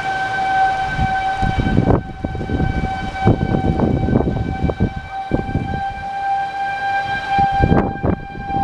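Outdoor tornado warning siren sounding one steady held tone, with uneven low rumbling beneath it from about a second and a half in.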